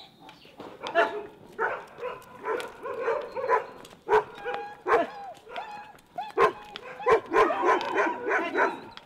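A dog barking over and over, sometimes several barks in quick succession.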